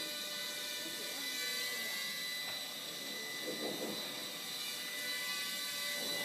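Walkera Ladybird V2 micro quadcopter's small electric motors and propellers whining steadily in flight.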